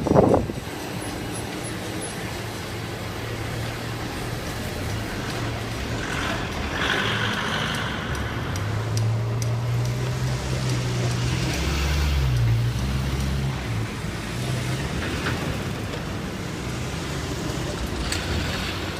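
Road traffic: motor vehicle engines running and passing slowly, with an engine hum that grows stronger about nine to thirteen seconds in. Two loud knocks sound right at the start.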